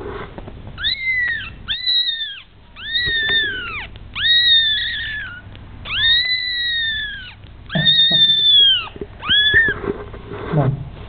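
Two-week-old kitten mewing: seven high, thin cries in a row, each rising at the start and falling away at the end.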